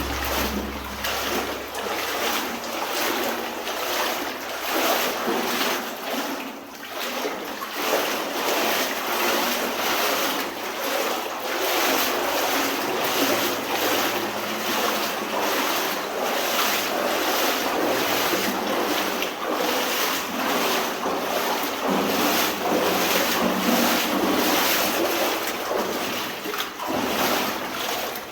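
Water sloshing and splashing around the legs of a person wading through a flooded mine adit, a continuous wash of water broken by repeated surges with each stride.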